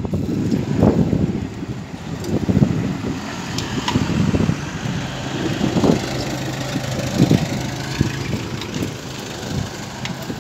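A motor vehicle's engine running with a steady low hum, under gusts of wind rumble on the microphone from a bicycle ride.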